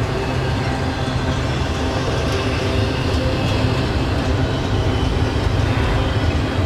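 Double-stack intermodal well cars loaded with shipping containers rolling past at speed, a steady rumble of steel wheels on the rails.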